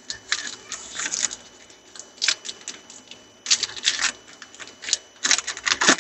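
Foil wrapper of a Topps Chrome trading-card pack crinkling in irregular bursts of crackling as the pack is torn open and handled.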